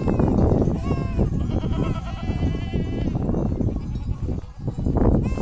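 A large flock of sheep bleating, many calls overlapping one another.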